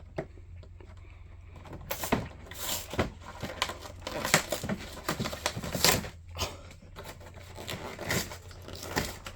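Hands working at a cardboard trading-card collection box to get it open: irregular scraping and rubbing with a string of short taps and knocks on the cardboard.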